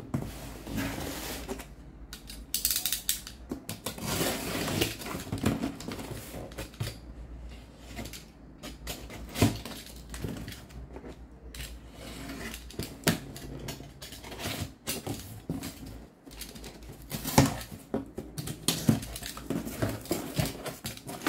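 Irregular knocks, clicks and rustling of objects being handled as a delivery box is opened and unpacked.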